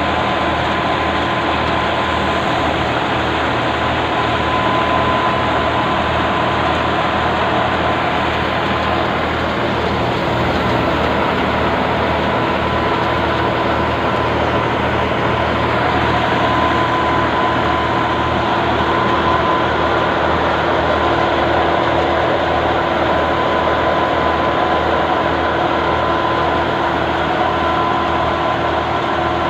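Tractor-driven thresher threshing mustard, powered through a PTO shaft and belt pulleys, running steadily with the tractor engine. It makes a dense, unbroken din with a fast low throb and a faint steady whine.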